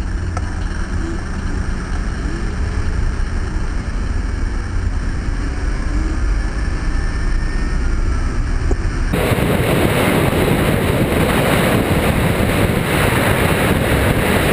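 Wind buffeting a camera microphone held out of a car window, over the low rumble of the car and traffic. About nine seconds in it changes abruptly to a louder, fuller rush of wind as the car travels at speed on the open road.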